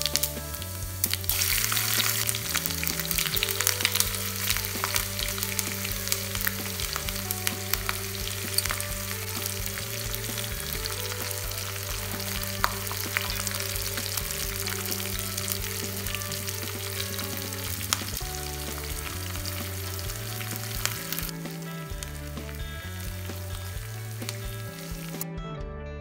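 Spices and cashews sizzling and crackling in hot fat in a steel frying pan, a tempering of cumin, dried red chillies, green chillies and garlic. The sizzle is busiest in the first few seconds, eases near the end and stops just before it, with background music underneath.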